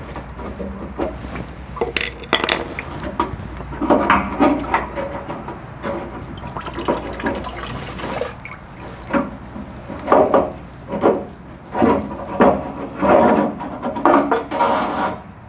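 Fuel sending unit being pried loose with a screwdriver and worked out of a rusty steel gas tank: irregular scrapes and knocks of metal, with gasoline sloshing and splashing in the tank opening.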